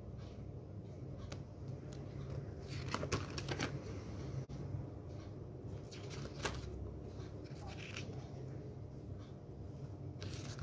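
Paper pages of a ring-bound planner being turned and handled by hand: soft rustling with a few sharp page flicks, the clearest about three seconds in and again past six seconds, over a steady low hum.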